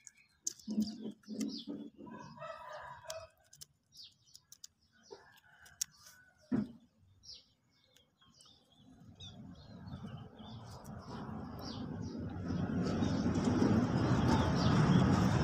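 Birds chirping in the background over small scattered clicks of hand work. From about nine seconds in, a scratchy rustling builds and grows loud near the end: dry coconut coir fibre being handled and wrapped around a cutting.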